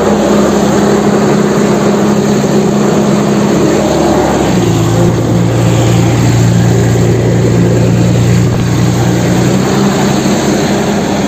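A steady engine drone, a low hum of several steady tones, shifting to a stronger, lower note about four and a half seconds in.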